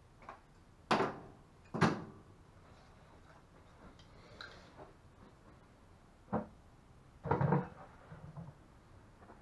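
Knocks and clatter of PVC pipe fittings and a plastic 5-gallon bucket being handled and set down. There are four sharp knocks, two close together near the start and two more about six to seven and a half seconds in, with fainter clatters between.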